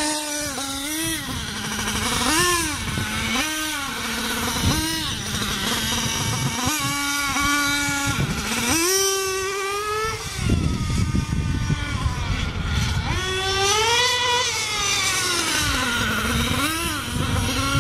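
Small nitro glow engine of a Losi RC buggy revving up and down as it is driven: several short blips of throttle in the first few seconds, then longer runs where the pitch climbs and falls away, and a slow rise and fall near the end.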